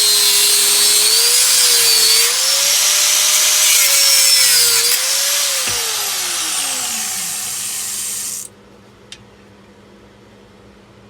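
Power cutting tool slicing through a magneto casing: a loud hissing cut over a motor whine that wavers with the load. The motor winds down about six seconds in, the cutting noise stops about two seconds later, and a low hum is left.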